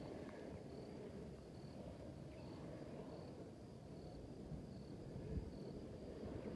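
Faint cricket chirping, a short high chirp repeated about once a second, over a low steady background rumble.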